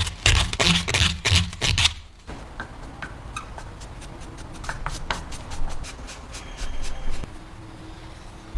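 Rhythmic hand scraping or rubbing strokes on a workpiece, about three to four a second, for the first two seconds. Then it is quieter, with scattered light clicks and taps of handling.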